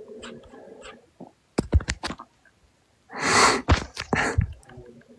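A man's stomach growling and gurgling: a low gurgle, then a quick run of squelchy pops about a second and a half in. A louder rushing burst comes about three seconds in, followed by more pops.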